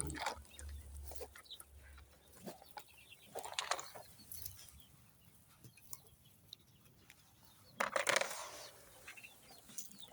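Domestic fowl moving about: short noisy bursts, the loudest about eight seconds in, with scattered small clicks between.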